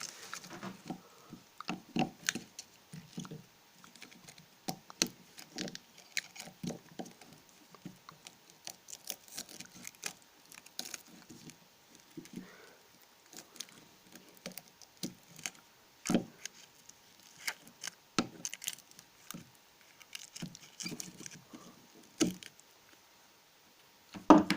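Irregular clicks, taps and rustling of a transformer and its wires being handled, with a sharper knock about sixteen seconds in and another near the end.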